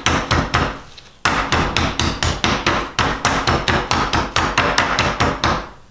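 Metal meat mallet pounding chicken breast through plastic wrap on a wooden cutting board to flatten it: a rapid run of dull strikes, several a second, with a short break about a second in.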